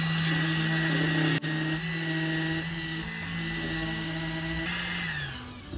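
Electric mini sander running steadily while sanding a wooden block, then switched off and winding down near the end.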